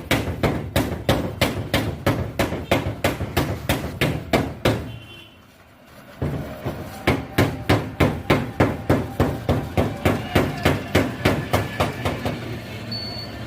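A fast, even series of sharp knocks, about three or four a second. They break off for about a second midway, then start again and thin out near the end.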